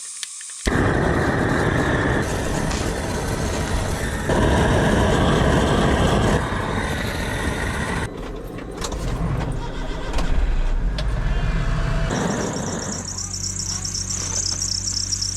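Kei mini truck's engine running as it drives, starting abruptly under a second in. From about twelve seconds in the engine settles to a steadier, lower hum, with a high insect-like chirring over it.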